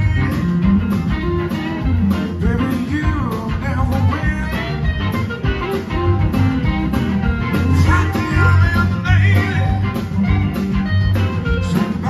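Live blues band playing a slow blues: electric guitars, bass guitar, drums and keyboards, with lead lines gliding up and down in pitch.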